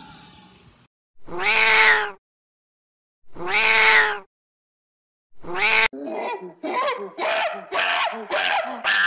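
Domestic cat meowing three times, the last call shorter. About two-thirds of the way in, a monkey breaks into a fast run of short squealing calls, about two a second.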